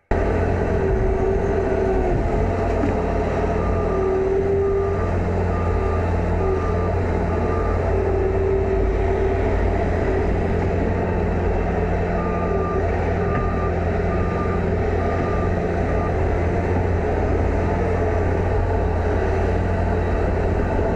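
Bobcat S76 skid steer's diesel engine running steadily under load while driving its snowblower attachment. The machine's backup alarm beeps in two spells, a few beeps a second, as it reverses.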